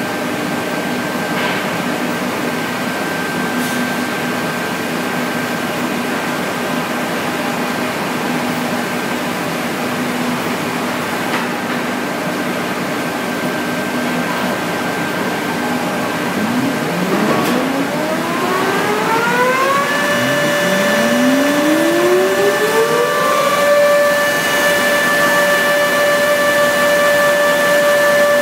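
REX planing machine running, then its motors spinning up one after another: a rising whine settles into a steady high tone, and a second whine climbs the same way a few seconds later. The overall noise grows slightly louder.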